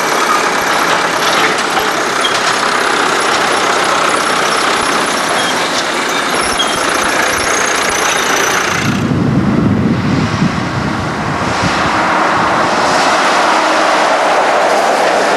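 Farm tractor engine running as it tows a trailer past, with a heavy low rumble as it comes close about nine seconds in. Near the end comes the steady road noise of a truck and trailer passing.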